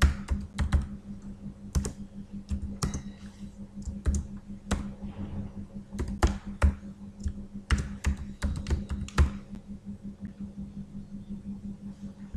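Typing on a computer keyboard: irregular keystroke clicks, thinning out near the end, over a steady low hum.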